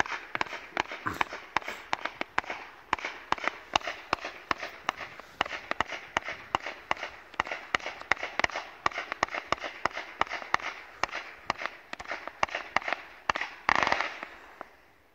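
Ghengis Fireworks category 4 firework cake firing: a rapid, unbroken stream of sharp cracks and pops from its shots bursting, many a second. Near the end a louder rushing burst comes, and then the firing dies away.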